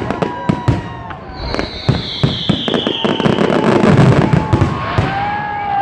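Fireworks display: a rapid run of crackling bangs, then a whistle falling in pitch over a rumble of booms. Near the end, the crowd starts cheering.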